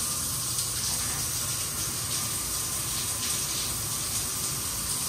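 Shower running: a steady spray of water hissing in a small tiled room.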